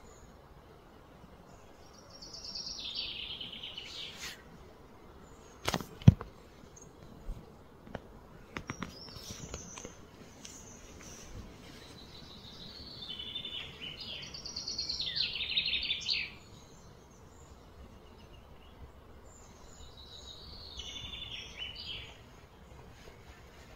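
Bird calls: three rounds of high, rapid trilled notes, each falling in pitch over a second or two. A single sharp knock about six seconds in is the loudest sound, followed by a few softer clicks.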